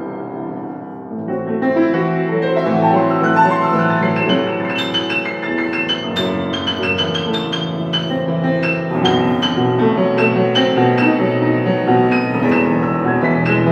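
Solo piano playing, notes and chords ringing into one another under the sustain. A chord dies away about a second in, then the playing picks up again with high notes struck over the lower harmony.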